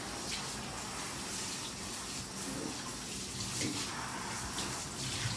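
Tap water running into a bathtub and splashing over a dog being rinsed, a steady hiss of water.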